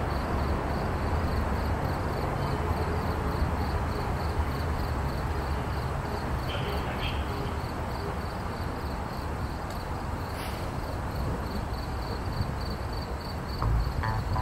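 Outdoor ambience: a steady low rumble with an insect chirping at a high pitch, evenly, about four times a second. A single click about ten seconds in, and music starts near the end.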